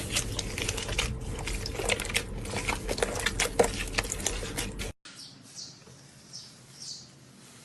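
Slime being squished and worked by hand, giving dense crackling and popping clicks. About five seconds in it cuts off abruptly to a quieter stretch of soft crackles that come back every fraction of a second.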